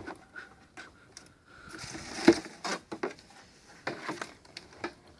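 Corrugated plastic hose being pushed down into a plastic barrel, scraping and knocking against the barrel's inside as it goes. The knocks are scattered, with a longer scrape and the loudest knock about two seconds in.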